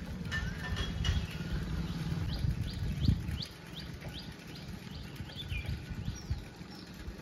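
Birds calling, one of them repeating a short, rising chirp about three times a second in a run of about ten notes, with a few other bird notes in the first second. A low, uneven rumble runs underneath.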